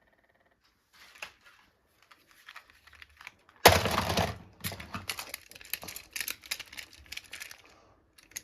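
Plastic toy cars being handled: a run of light clicks and rattles, with a louder crackling rustle for about half a second near the middle.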